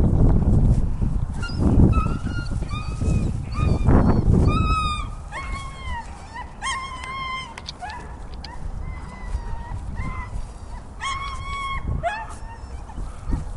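Donovan Pinscher whining and yelping in a string of short, high-pitched cries while held on a leash and worked up by an approaching bite-work helper. Low rumbling noise fills the first few seconds.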